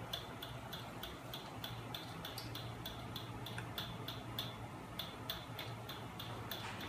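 Homemade magnet-motor rig driven by a 12 V electric motor running: a steady low hum with a light, regular ticking from the mechanism about three times a second.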